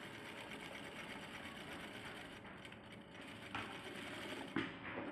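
Electric sewing machine stitching cloth, running steadily for a couple of seconds and then in short spurts. Two sharp knocks come in the second half, the second one louder.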